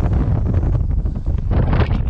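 Strong wind buffeting the camera microphone: a loud, gusty low rumble.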